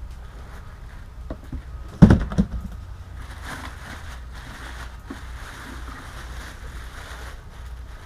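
Handling of the compressor's box and packing: one sharp thump about two seconds in, followed quickly by a couple of softer knocks, then faint rustling over a steady low hum.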